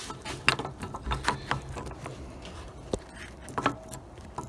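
Light, irregular metallic clicks and taps of a car door hinge being handled and wiggled, its seized hinge pin just drilled out.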